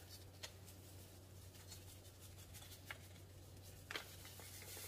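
Near silence: a faint low steady hum and three faint ticks as a paper packet of ranch seasoning mix is shaken out, the powder falling almost without sound.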